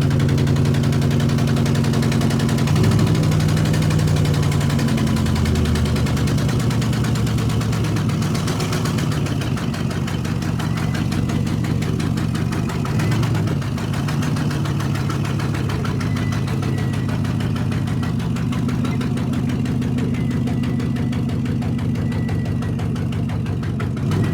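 Ford F-250 Super Duty pickup's engine idling steadily just after being started, its note shifting slightly a few seconds in and again around the middle.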